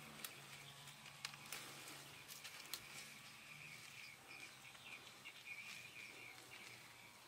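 Faint rural ambience: a high insect chirr that comes and goes, with a few small sharp snaps as leafy stems are plucked by hand.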